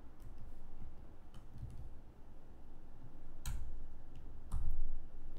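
Scattered keystrokes on a computer keyboard: a handful of separate clicks, the loudest about three and a half seconds in and again near the end, over a faint low hum.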